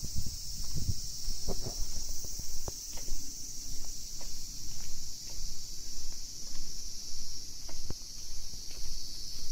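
Slow footsteps on a stone path, with low thuds about once a second, under a steady high-pitched insect drone.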